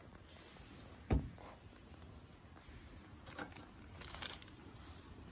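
Handling of tableware at a camp table: a dull thump about a second in, then a small click and a short clink of light, bright taps near the end, as with chopsticks on a metal cup.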